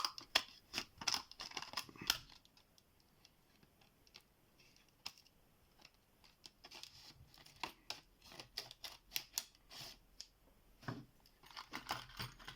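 Scissors snipping and the plastic packaging of a new padlock being cut and torn open, a run of short crackling clicks, then a few seconds' pause before the snipping and crinkling start again.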